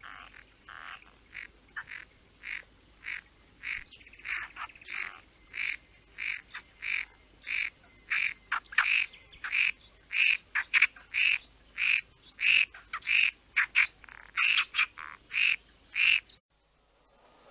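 A bird calling over and over in short separate calls, about two a second, growing louder and stopping abruptly near the end.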